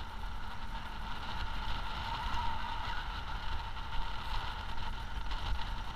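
VW dune buggy driving along a sand beach: a steady engine drone with an uneven low rumble of wind on the microphone.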